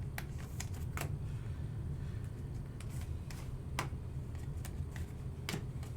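Trading cards being handled, with scattered light clicks and rustles of card and plastic sleeve, over a steady low hum.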